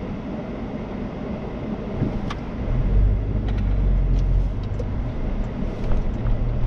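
Car interior rumble from the engine and tyres as the car pulls away and turns through an intersection; the low rumble grows clearly louder about two and a half seconds in, with a few faint clicks over it.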